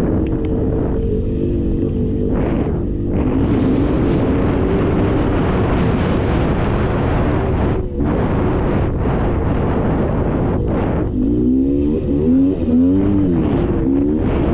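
Two-stroke engine of a Polaris Scrambler 400 ATV running under way on a muddy trail, revved up and down several times near the end, with a broad rushing noise in the middle.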